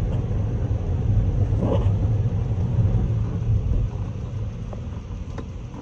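Low rumble of a car driving through floodwater on a flooded street, heard from inside the car; it eases off about four seconds in.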